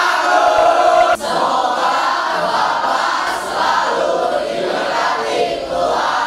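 A class of teenage students singing together in unison, like an untrained choir of mixed voices. The singing jumps abruptly about a second in.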